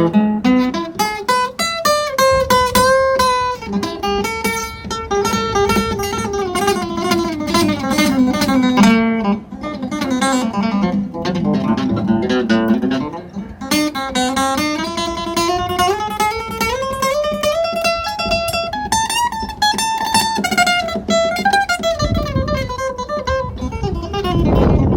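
Guitar played solo, improvising in A minor: runs of single notes climbing and falling over a held low note, with a low rumble near the end.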